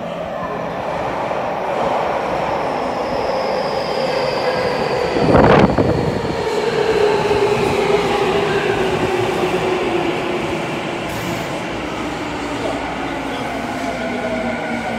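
Tokyu 5050-series electric train running into an underground station and braking to a stop, its motor whine falling steadily in pitch as it slows, over a steady rumble of wheels on rail. A brief loud burst, the loudest moment, comes about five and a half seconds in as the train reaches the platform.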